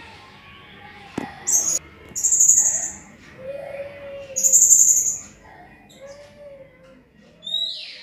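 Serindit (hanging parrot) giving shrill, very high-pitched calls: a short one about a second and a half in, two longer ones around two and four and a half seconds in, and a falling call near the end. A single sharp click comes just after a second in.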